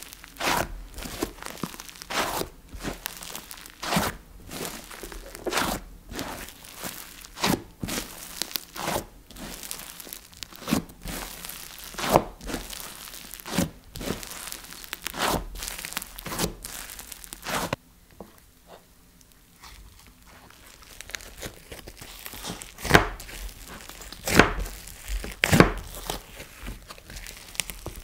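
Pink slime being stretched, folded and pressed by hand, giving repeated sticky pops and crackles about one or two a second. A quieter spell comes about two-thirds of the way through, then a few louder pops near the end.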